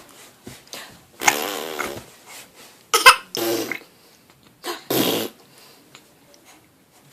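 Seven-month-old baby growling with the hiccups: three rough throaty growls in a row, the sharpest and loudest about three seconds in.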